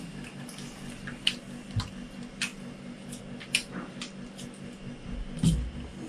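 Handling noise: scattered light clicks and knocks as a drone and plastic cases are moved about on a glass counter, with a low thump near the end, over a faint steady hum.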